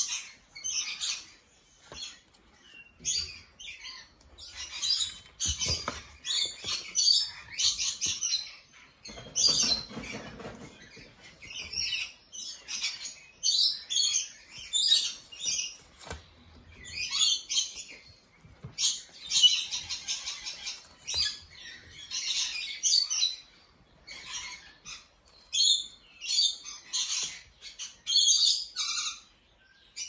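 Small cage birds chirping and chattering in quick, high-pitched bursts again and again, with a stretch of rustling near the middle as kittens scrabble in a cardboard box.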